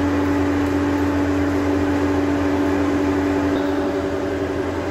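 Electric blower running with a steady hum: one strong low tone over a deeper drone and an even rushing noise, with no hammer blows.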